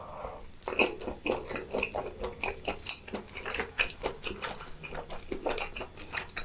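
Close-miked chewing of a mouthful of abalone in sauce: wet, squishy chews in a quick, even rhythm of about four a second, starting just under a second in.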